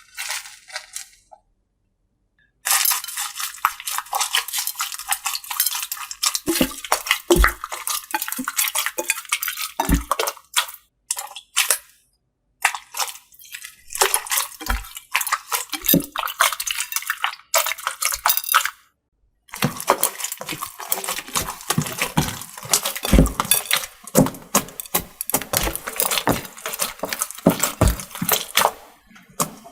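Slime being squeezed, poked and stretched by hand, giving dense wet crackling and popping in three long bouts with short pauses between them.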